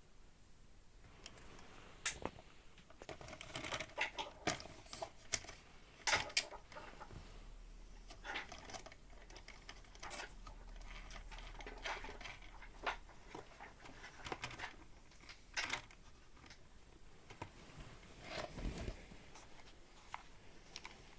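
Toy RC car clattering about, its plastic body and wheels giving irregular clicks, knocks and short rattles.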